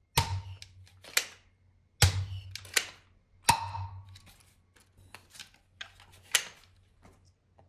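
Sharp plastic clicks and clacks from a hand-held toy foam-dart revolver blaster being worked, about half a dozen at irregular intervals in the first few seconds, then a quieter stretch and one more loud click about six seconds in.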